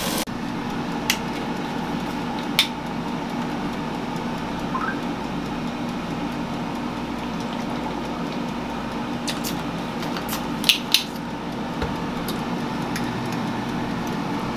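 Steady hum of a running appliance in a small kitchen, broken by a few light clicks and clinks, two of them close together about eleven seconds in.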